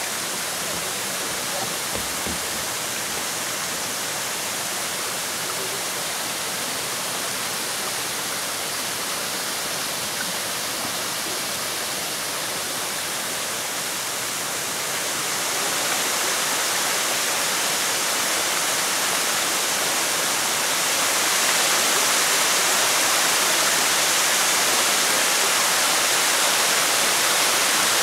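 A tall, narrow waterfall spilling down a rock cliff, a steady rush of falling water. It grows louder and hissier about halfway through and again a few seconds later, as the falls come closer.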